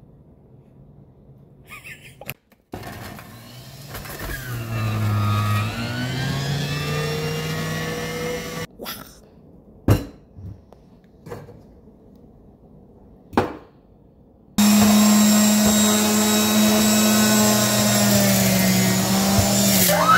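Nutribullet centrifugal juicer's motor running under load. Its whine dips and recovers as fruit is fed, a few knocks follow as fruit is handled on the counter, then the motor starts suddenly and runs steadily and loud, its pitch sagging slightly near the end as an apple is pushed into the spinning blade.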